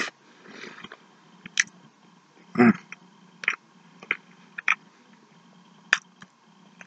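Close-up chewing of a McDonald's burger: wet lip smacks and sharp mouth clicks every second or so, with one louder, fuller mouth sound about two and a half seconds in.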